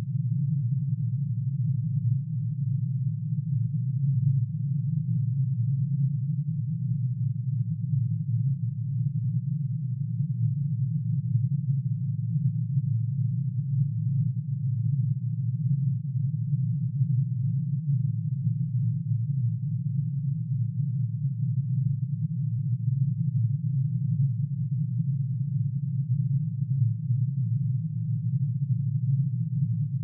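Computer-synthesized drone made by adding together one sine wave for each line of curium's atomic emission spectrum, pitch-shifted into the audible range. It is a steady low hum of many closely packed tones, with a slight wavering beat.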